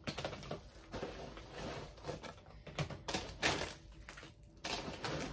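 Packaging being handled and opened by hand: a run of short, irregular rustles and crinkles as the makeup bag is taken out of its mailer.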